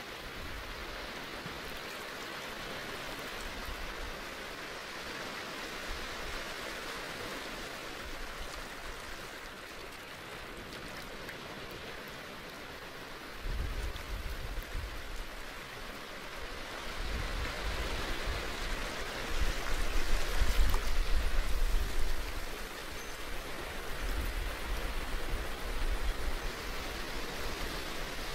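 A steady rushing noise, like running water, with a low rumble that comes in about halfway through, swells to its loudest a few seconds later, then eases.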